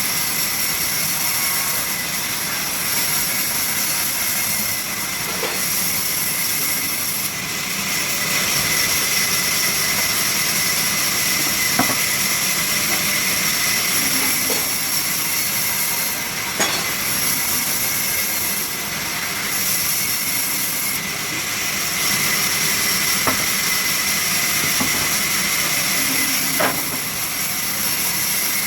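Sawmill machinery running with a loud, steady hiss, with a few sharp knocks scattered through it.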